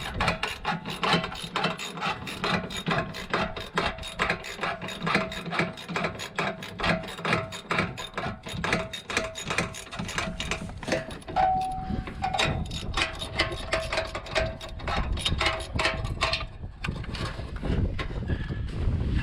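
Ratchet wrench clicking rapidly as exhaust bolts are worked loose. The clicking stops about three-quarters of the way in, leaving a low rumble.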